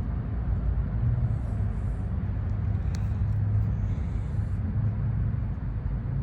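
Steady low rumble with one faint click about three seconds in.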